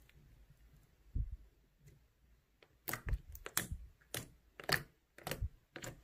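Clear slime packed with foam beads being pressed and poked by fingers: a soft thud about a second in, then a quick run of sharp crackling clicks and pops from about three seconds on as the beads and slime are squeezed.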